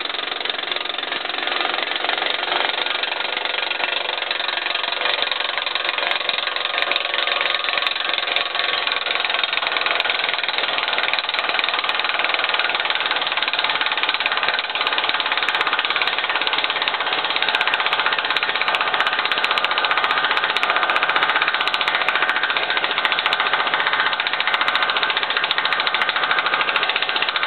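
Impact wrench hammering continuously, a dense rapid rattle, driving the installation tool that presses a Hendrickson tri-functional bushing into place. It grows slightly louder about halfway through.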